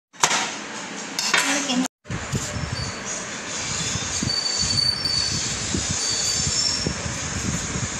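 Metal vegetable peeler scraping down a raw carrot in quick, uneven strokes, after a short stretch of knife cutting on a plastic chopping board.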